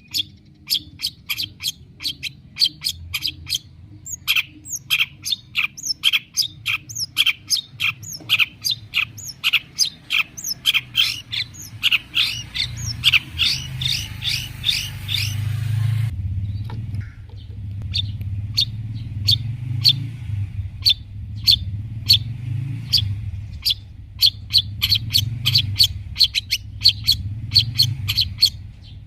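Long-tailed shrike (cendet) singing a fast run of short, sharp chirps, about three to four a second, with a brief pause a little past halfway, over a steady low hum.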